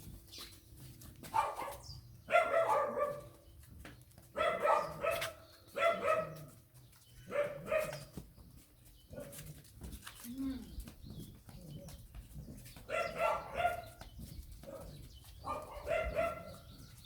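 A dog barking repeatedly in short runs of a few barks, with a quieter stretch of several seconds in the middle.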